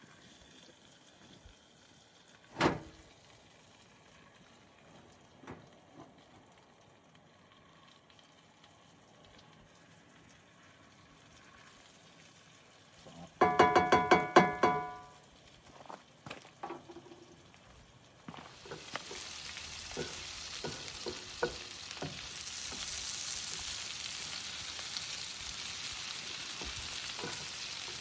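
Food sizzling on a Blackstone flat-top griddle, starting about two-thirds of the way in and going on steadily, with small taps and scrapes of a spatula. Before it, a short loud run of rapid ringing clicks and a single sharp click earlier.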